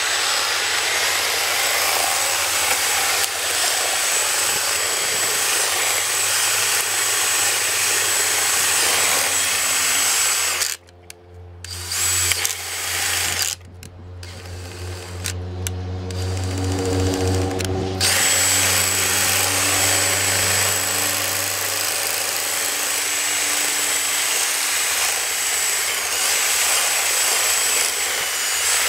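A power drill spinning a converted string trimmer head, whirring steadily with a high whine as the line cuts grass. About eleven seconds in the drill cuts out briefly, then runs unevenly for several seconds before coming back up to full speed.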